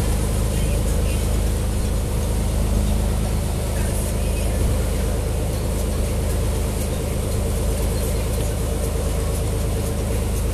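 Motorboat engine running steadily under way, a constant low drone, with the steady hiss of the churning wake over it.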